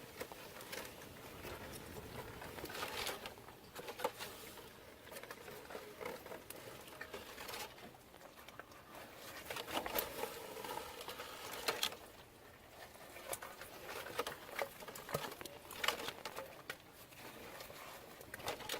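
Irregular rustling with scattered sharp clicks and taps, some louder knocks among them.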